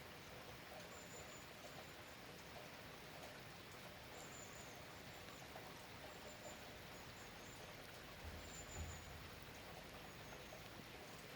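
Steady light rain, a soft even hiss. Faint short high chirps come every second or two, and there is a brief low rumble about eight seconds in.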